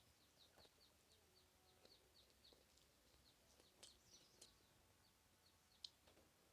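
Near silence, with faint bird chirps repeating a few times a second and a few soft clicks.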